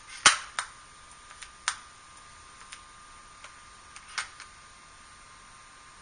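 Irregular sharp clicks and taps, the loudest about a third of a second in, with further ones around half a second, one and a half seconds and four seconds in, over a faint steady high hum.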